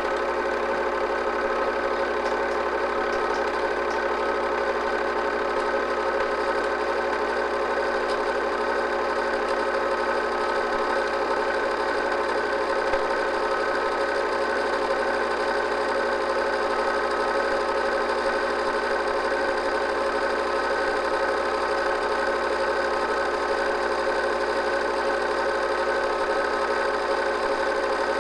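8mm film projector running steadily, its motor hum and mechanical clatter even and unchanging, recorded during the transfer of a silent home movie.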